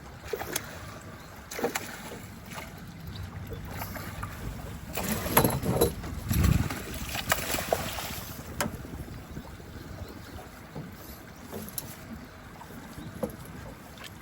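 Wind and water noise on the open water, with scattered clicks and knocks and a louder, rougher stretch in the middle.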